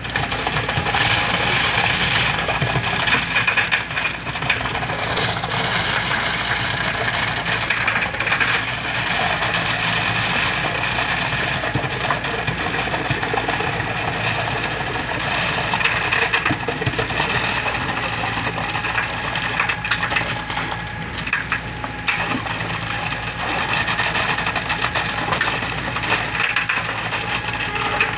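Wet concrete pouring into a rebar-caged footing form, a steady gritty rush of slurry and aggregate spattering over the steel bars and formwork.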